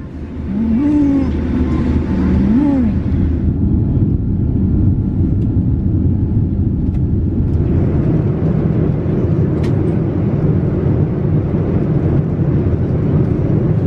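Jet airliner cabin noise during the climb after takeoff: a loud, steady low rumble of engines and airflow. In the first three seconds a voice hums a few notes that glide up and down over it.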